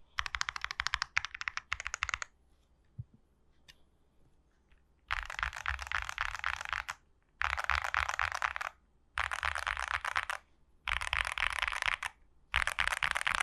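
Fast typing on a MYNK 80X mechanical keyboard with WS Brown tactile switches: rapid keystroke clicks in runs. A pause of about three seconds holds only a few single key presses, then five runs of rapid typing follow, each a second and a half to two seconds long, with brief breaks between.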